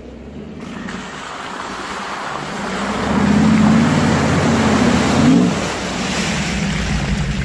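Toyota Land Cruiser V8 engine pulling through a muddy water hole, with a loud rush of splashing water. The sound swells as the truck hits the water about three seconds in, and the engine note rises briefly about five seconds in.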